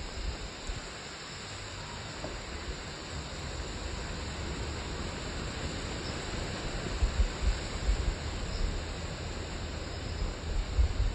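Steady outdoor background hiss, with low rumbles of wind on the microphone that swell a few times in the second half.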